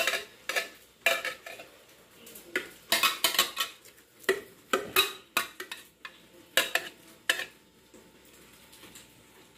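A metal spoon and cookware clinking and scraping while thick stew is scooped out of a pressure-cooker pot and stirred in a plastic bowl. It is a run of irregular clinks and clatters that dies away about two seconds before the end.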